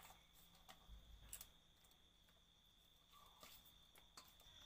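Near silence: a few faint clicks from small fish being picked over by hand in a steel bowl, over a faint steady high-pitched tone.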